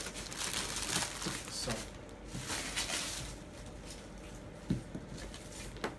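Plastic packaging crinkling and rustling as accessories are handled on a table, dying down after about three seconds, followed by a single light knock of a part being set down.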